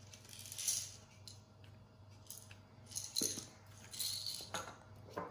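Black peppercorns rattling inside a small plastic spice jar as it is shaken, in a few short bursts with some sharp clicks.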